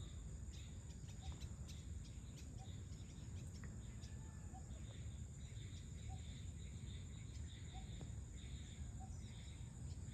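Evening insect chorus: a steady high buzz with a pulsing chirring beneath it, and a short low call repeating about every second and a half. A faint low rumble runs underneath.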